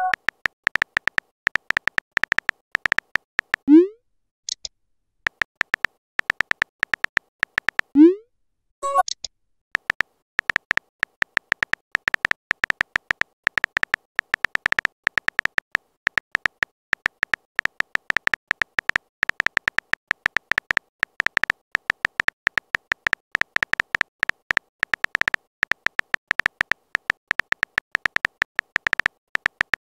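Simulated phone-keyboard typing: rapid short tap clicks, several per second, each carrying a brief high tone. About four and eight seconds in, a rising pop sounds as a message appears, the second followed by a short tone, before the steady tapping takes over.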